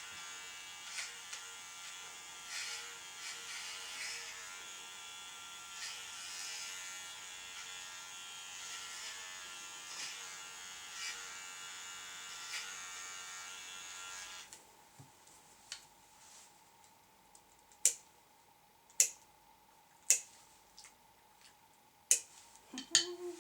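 Electric dog grooming clippers running with a steady buzz, switched off about two-thirds of the way through. Several sharp clicks about a second apart follow near the end.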